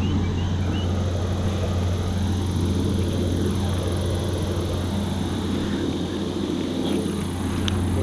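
An engine running steadily, a constant low drone that holds the same pitch throughout.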